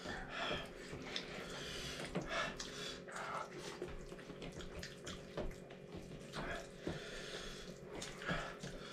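Quiet eating sounds: scattered short chewing and mouth noises with a few small clicks, over a faint steady hum.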